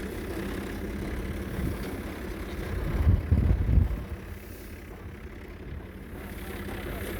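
Tractor engine running steadily while driving a wheat thresher, a continuous low mechanical rumble, with a louder low rumbling surge about three seconds in.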